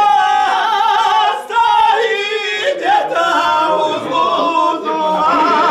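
A group of voices singing a traditional folk song unaccompanied, holding long notes with a wavering vibrato, with a short break about a second and a half in.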